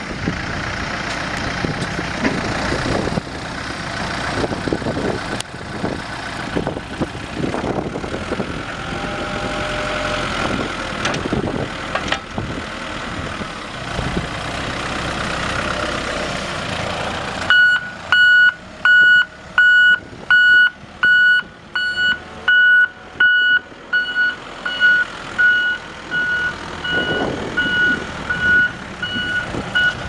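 Volvo BL70 backhoe's 4.8 L diesel engine running. A bit past halfway its reverse alarm starts beeping steadily at about one and a half beeps a second, the signal that the machine is in reverse.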